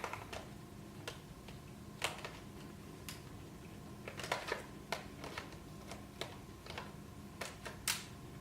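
Irregular clicks and light knocks of a laptop's plastic casing being handled and parts pressed back into place, about a dozen in all, the sharpest one near the end.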